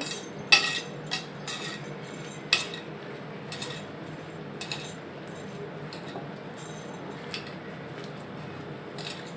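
Bangles clinking against each other and the bowl as a hand mixes a wet cabbage-and-gram-flour mixture. The clinks are irregular: several come in quick succession in the first few seconds, then a few more spaced out, over a faint steady hum.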